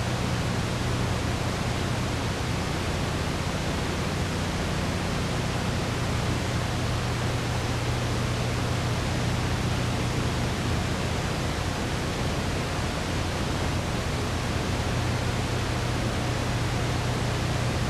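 Steady, even hiss with a low hum beneath it, unchanging, with no other sound standing out.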